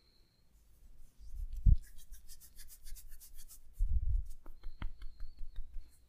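Hands massaging a body: a dull thump, a stretch of fast rhythmic rubbing strokes at about seven a second, another thump, then a quick run of sharp clicks near the end.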